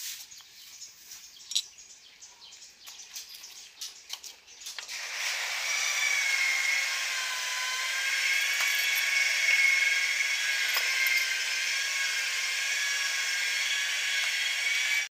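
A screwdriver prying and tapping at the metal grease cap on the hub of a rear brake drum: a run of small scrapes and clicks. About five seconds in, a steady high whine of several held tones from an unseen source sets in and continues, louder than the tool sounds.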